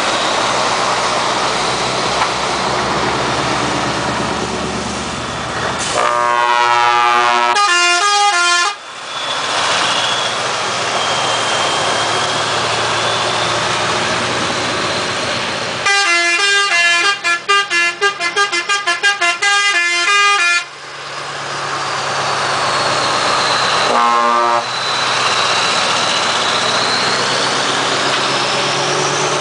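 Scania R500 trucks driving past, with their V8 engines and tyres running under loud air-horn blasts. About six seconds in, a horn sounds for about two and a half seconds, stepping through several pitches. Midway comes a longer run of about five seconds that breaks into quick repeated toots, and a brief blast follows about 24 seconds in.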